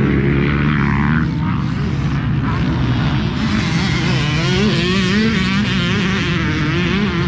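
Motorcycle engines running steadily, with higher engine notes rising and falling over them from about four seconds in.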